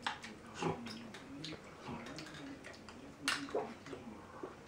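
Metal spoons clinking and scraping inside cans of creamed corn as two people eat quickly, with two sharper clinks about a second in and near the end. A faint wavering hum runs underneath.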